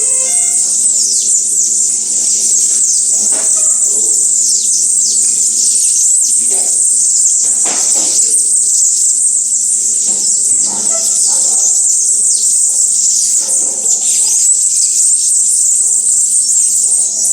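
Dense chorus of many small songbirds giving high, thin chirps and quick downward-sliding calls, with scattered lower chirps, over a faint steady hum.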